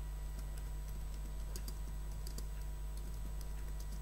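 Computer keyboard typing: scattered quiet key clicks over a steady low hum.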